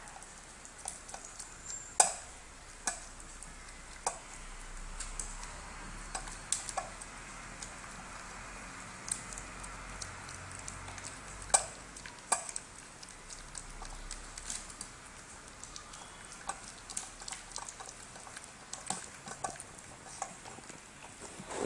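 Small poodle eating from a steel-rimmed food bowl: irregular sharp clicks and clinks of food and teeth against the bowl as it slurps and chews, a few a second.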